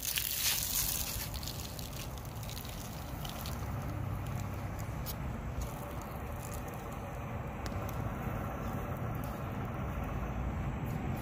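Dry grain being poured and spread by hand into a cardboard toy trailer: a loud rushing hiss of falling grain in the first second or so, then a continuous trickle and light pattering of grains, over a steady low rumble.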